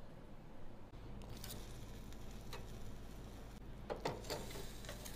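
Steel tongs clicking and scraping against a metal tray and a wire grill rack as pig's trotters are picked up and set down: a few light ticks, then a louder cluster of clinks about four seconds in. A low steady hum runs underneath from about a second in.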